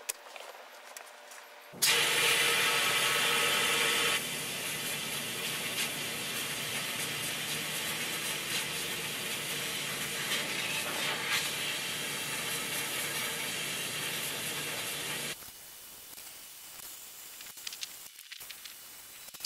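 Bead-blasting gun of a Cyclone E100 LTC bench-top blast cabinet spraying fine bead media onto aluminium. It gives a steady hiss of compressed air and grit that starts about two seconds in, drops a little in level a couple of seconds later, and cuts off a few seconds before the end. The replacement gun is feeding media steadily. Faint handling clicks follow the blast.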